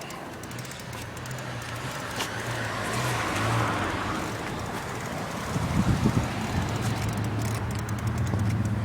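A road vehicle passing by, its noise swelling to a peak a few seconds in and then fading, over a steady low hum, with a few low bumps near the middle.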